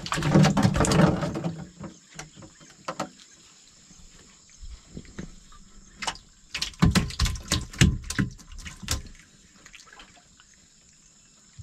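Freshly caught tilapia flapping in the wet bottom of a boat: wet slaps, patters and drips in bursts, heaviest in the first second or so and again from about six to nine seconds in.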